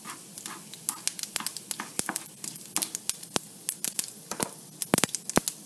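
Mustard and cumin seeds sizzling in hot oil, with mustard seeds popping in sharp, irregular cracks that come more often and louder after about a second. The popping is the cue in tempering that the oil is hot enough to add the ginger.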